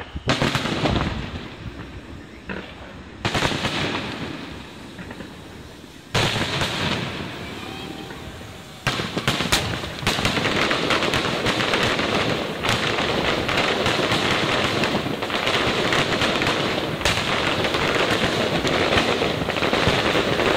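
Aerial fireworks bursting: a loud boom with a fading rumble about every three seconds at first, then from about halfway a continuous crackling barrage with sharp pops.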